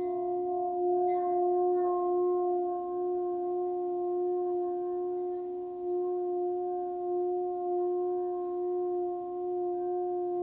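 Metal singing bowl sung by a wooden mallet circling its rim: a steady ringing hum with a low tone and higher overtones that waver slowly without dying away.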